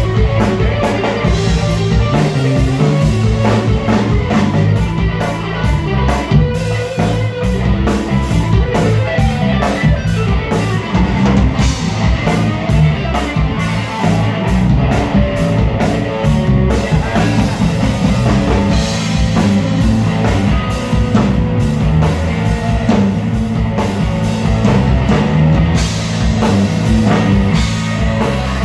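Live rock band playing loud in an instrumental passage with no vocals: electric guitar, electric bass and drum kit.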